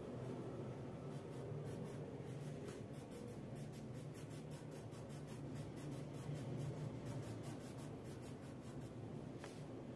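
Wax crayon scribbling on paper: a quick run of short back-and-forth scratching strokes, about three or four a second, over a low steady hum.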